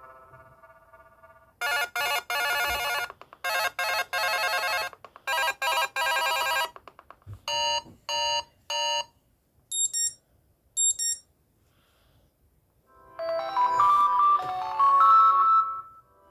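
A run of an S-TELL C552 Android phone's built-in tones played one after another: a buzzy trilling ring in bursts for about five seconds, then three short beeps, two high chimes about a second apart, and a short melodic tune starting near the end.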